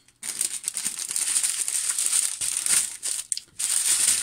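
Small plastic zip bags of diamond-painting resin drills crinkling and rustling as they are handled, with a short break a little after three seconds in.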